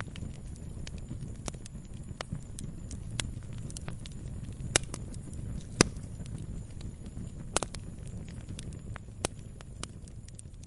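Log fire burning: a steady low rumble of flames with irregular sharp crackles and pops of the burning wood, a few louder pops from about halfway through.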